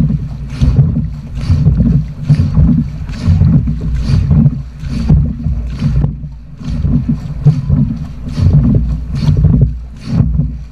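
Dragon boat crew paddling: the blades strike and pull through the water in a steady rhythm of a little more than one stroke a second, over a constant low rumble of water and wind at the hull.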